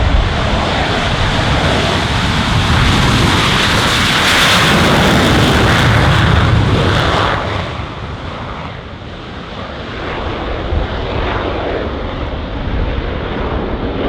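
Military aircraft flying past at an air display, its engine roar loudest about four to seven seconds in, then dropping away sharply.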